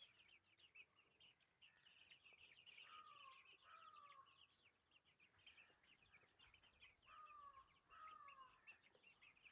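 Faint, continuous cheeping of chicks: a dense run of short high peeps. Two pairs of falling calls come about three and seven seconds in.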